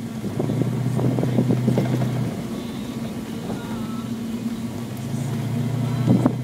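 Rally car's engine running, heard from inside the cabin on a rough dirt track. It pulls harder for a couple of seconds from about half a second in and again near the end, over frequent knocks and rattles as the car bounces over the rough surface.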